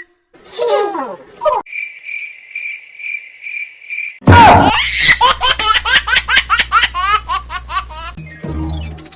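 Cartoon sound effects: a couple of quick falling pitch glides, then a high steady beeping about twice a second, then, about four seconds in, loud rapid laughter for about four seconds.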